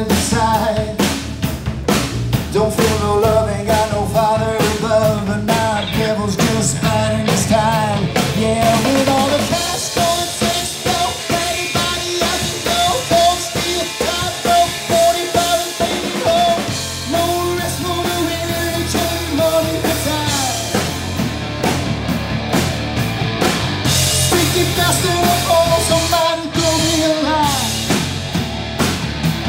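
Rock band playing an instrumental stretch: electric guitar, bass guitar and drum kit, with a melodic lead line that bends in pitch over a steady beat.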